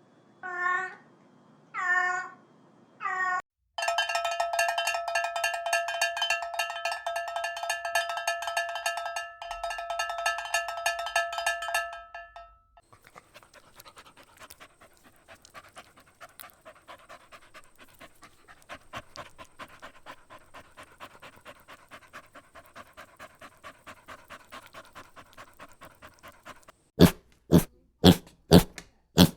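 A run of animal sounds: a few short meows at the start, then a long stretch of quick rhythmic dog panting, and about five loud, sharp barks near the end.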